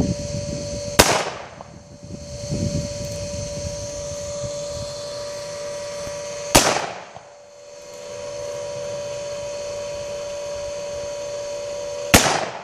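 Black powder pistol fired three times, about five and a half seconds apart, each shot a sharp crack with a short trailing echo.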